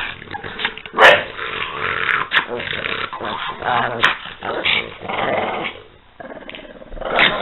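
A pug and a French bulldog growling at each other in play-fighting. The loudest outburst comes about a second in, with a short lull near the end before another burst.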